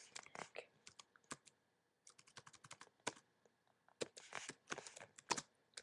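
Faint typing on a computer keyboard: irregular key clicks in bursts, with a short pause about a second and a half in.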